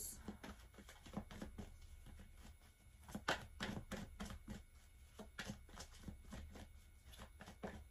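A deck of tarot cards being shuffled overhand: faint, irregular soft clicks and flicks of card on card, a few a little louder about three and five and a half seconds in.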